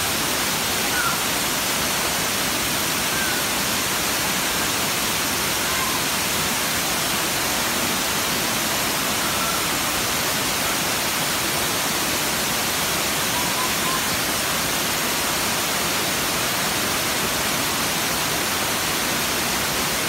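Asik-Asik Falls, a curtain of many thin streams falling down a vine-covered cliff into a rocky river: a loud, steady rush of falling and splashing water that does not let up.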